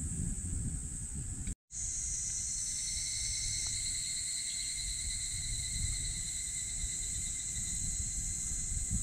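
Outdoor insect chorus: several insects shrilling in steady, high, unbroken tones over a low rumble. The sound cuts out completely for a moment about one and a half seconds in, then the insects carry on.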